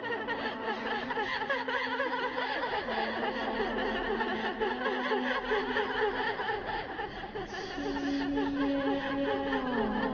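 A person's long, drawn-out laughter in quick, even pulses, its pitch dropping near the end.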